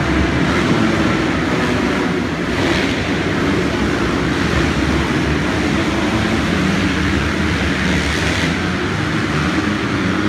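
Several motocross bikes racing around an indoor arenacross track, their engines running together in a steady, reverberant drone through the hall. The revving surges higher about two and a half seconds in and again near eight seconds.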